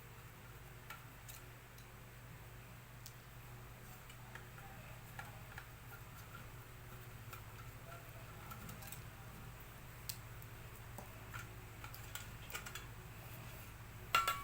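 Light, irregular clicks and taps of a laminator's plastic and metal parts being handled during disassembly, with a louder pair of clicks near the end, over a steady low hum.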